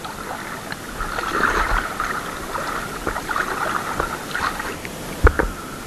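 Shallow sea water sloshing and splashing around the camera, with small clicks and one sharp knock about five seconds in.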